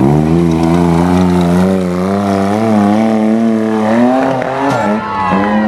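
Side-by-side off-road vehicle's engine running at high revs, the pitch wavering with the throttle; the revs dip and pick up again near the end.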